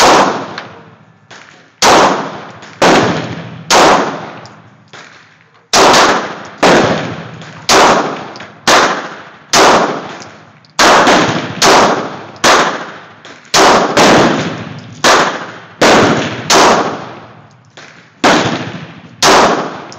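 Beretta PX4 Storm 9mm pistol firing about eighteen shots at roughly one a second, with short pauses twice. Each shot is a sharp crack followed by a short echoing decay, and a few fainter shots fall in between.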